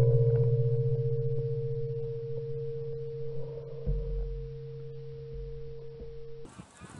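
Steady metallic ringing tone at two pitches, one low and one mid, slowly fading: the shotgun barrel still ringing after a shot, picked up through the gun-mounted camera. A dull bump comes about four seconds in, and the ringing cuts off abruptly near the end.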